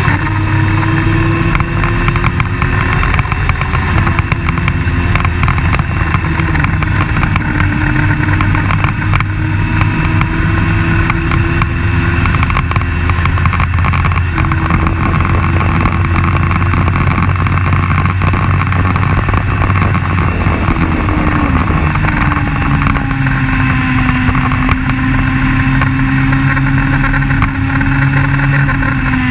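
Open-wheel race car's engine running hard at racing speed, heard onboard with heavy wind noise. The engine note stays loud and steady, shifting in pitch as the throttle changes, and drops a little about two thirds of the way in.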